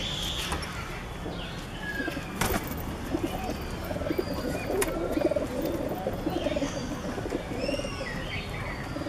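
Domestic pigeons cooing, a wavering low call repeated from about three seconds in, with higher chirps near the end and a couple of sharp knocks.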